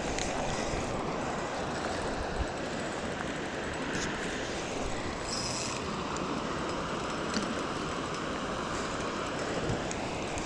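Steady rushing outdoor noise of wind across the microphone, with a few faint ticks.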